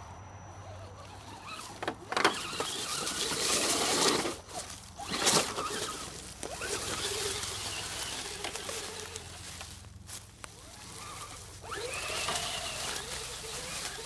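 Axial AX10 Deadbolt RC rock crawler's small electric motor whining as it revs up and down, with its tyres crunching through dry leaves and scrabbling over rocks. The loudest bursts come about two and five seconds in.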